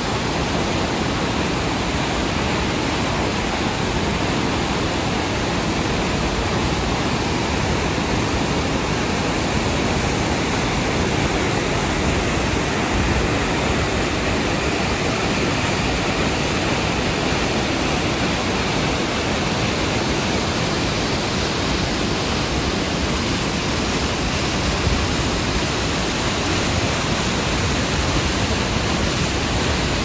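Iguazu Falls' cascades and the white-water rapids below them rushing: a steady, unbroken wash of water noise with no let-up.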